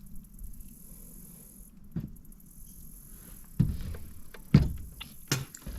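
A few hard knocks and thumps on a small fishing boat, five in all, spaced irregularly and loudest in the second half, over a low steady hum.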